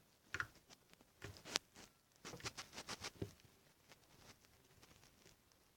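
Faint, scattered soft clicks and taps of hands handling things, bunched together between about two and three and a half seconds in.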